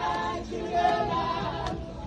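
A mixed group of men's and women's voices singing together.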